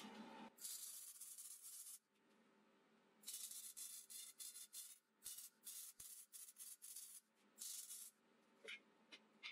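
Electric arc welding of steel: several short tack welds, each a burst of crackling hiss, some stuttering on and off.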